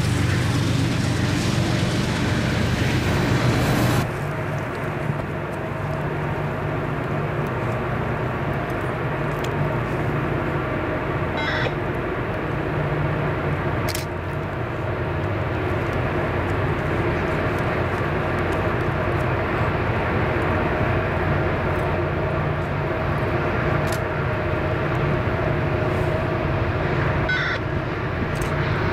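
Freight cars rolling past on the rails for the first four seconds. Then a steady, continuous drone from a distant EMD SD40-2 diesel locomotive (16-cylinder turbocharged two-stroke) pulling hard with a loaded train as it approaches.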